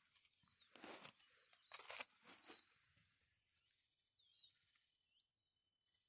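Faint rustling and crackling of dry pine-needle litter, in three short bursts over the first two and a half seconds, as a mushroom is handled and picked. After that it is near silence, with a few faint, high bird chirps from about four seconds in.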